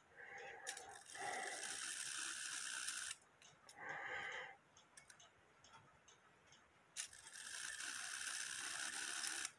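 The brass movement of an 1880s Alexander Fleig cuckoo clock being turned by hand at the minute hand arbor: two stretches of faint mechanical ratcheting from the wheels, each a couple of seconds long, one near the start and one near the end. The test is to bring the strike side into warning, which is not working as it should.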